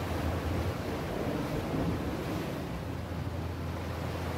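Steady wind rumbling on the microphone, with sea waves washing against the rock ledge.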